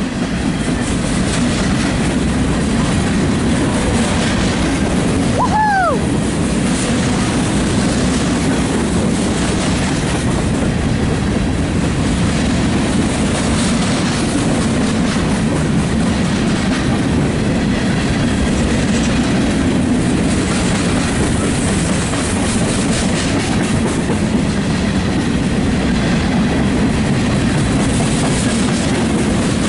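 A Union Pacific dirt train's open-top freight cars rolling past close by: a steady rumble of steel wheels on the rails with a clickety-clack over the rail joints.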